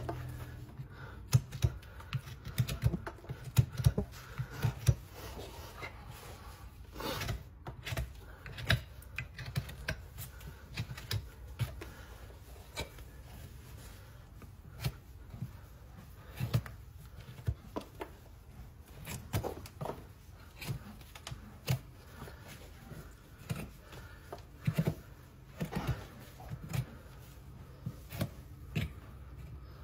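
Farrier's hoof knife paring a horse's overgrown hoof sole: irregular crisp cuts and scrapes with sharp clicks, thickest in the first few seconds and sparser after.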